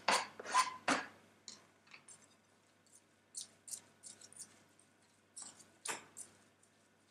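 Fork scraping chopped food off a cutting board into a glass bowl, then stirring sauerkraut, onion and apple in the glass bowl: scattered soft scrapes and clinks, a few sharper ones in the first second and a louder clink about six seconds in.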